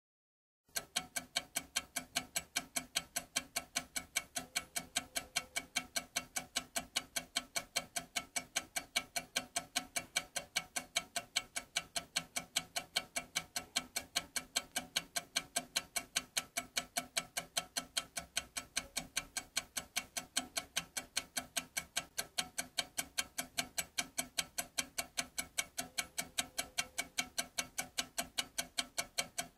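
Clock ticking steadily and quickly, several evenly spaced ticks a second, starting abruptly just after the start.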